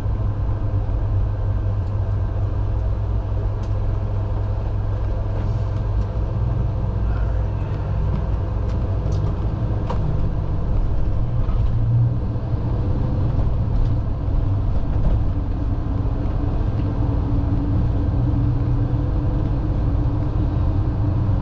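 Ambulance on the move, heard from the patient compartment: a steady low rumble of engine and road noise, with a few faint clicks and rattles.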